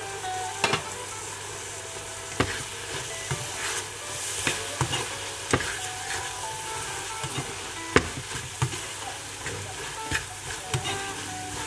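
Chopped onion, red capsicum and carrot sizzling in a frying pan as they are stirred with a spatula. A steady frying hiss runs under irregular knocks and scrapes of the spatula against the pan.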